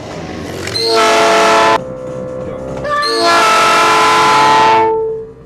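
Aftermarket train horn installed on a vehicle, sounded in two blasts: a short one about a second in that cuts off sharply, then a longer one of nearly two seconds from about three seconds in. Each blast is several steady tones sounding together as a chord.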